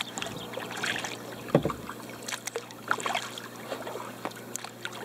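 Old Town Saranac 146 canoe being paddled: small splashes and drips of water from the paddle and water lapping at the hull.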